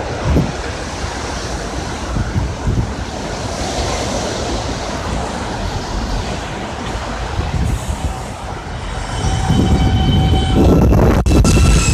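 New York City subway train running past on elevated track, a steady rumble of wheels on rail. It grows louder near the end as several steady high-pitched tones come in, with one sharp clank about 11 seconds in.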